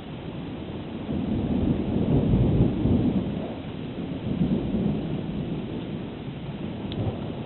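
Thunder rumbling: it swells about a second in, is loudest two to three seconds in, rolls on with a smaller second swell and then dies away.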